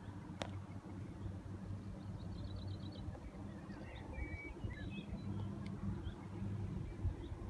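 Steady low drone of distant diesel engines from NI Railways Class 3000 diesel multiple units working hard under acceleration. Small birds chirp and twitter over it in the middle.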